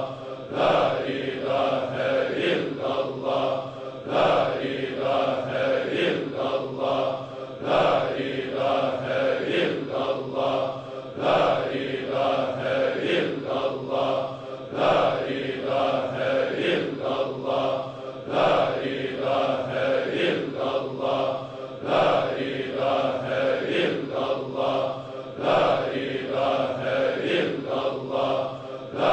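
Rhythmic chanting over a steady drone, one phrase repeating about every two seconds.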